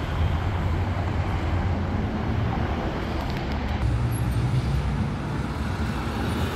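Steady road traffic noise: a continuous low rumble of vehicles passing on a city street.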